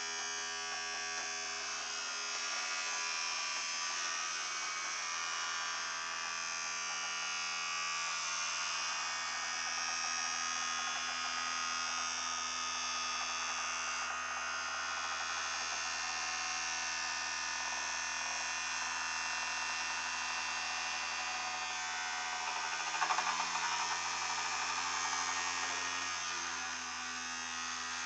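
Vibrating toothbrush motor buzzing steadily inside a floating aluminium foil tray, the foil hull buzzing with it. About 23 seconds in it gets louder and rougher for a few seconds.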